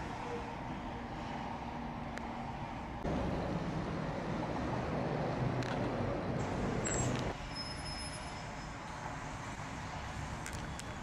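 Steady distant city traffic noise, with a louder stretch of low engine-like rumble in the middle that starts and stops abruptly.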